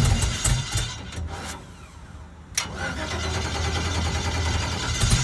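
Race car engine with a broken exhaust header starting up: it runs loudly at first and falls away through the middle. After a sharp click a little over two and a half seconds in, it catches again and settles into a steady rough running that grows louder near the end.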